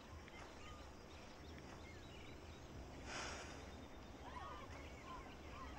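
Faint ambience with small birds chirping in the background, and one brief soft hiss about three seconds in.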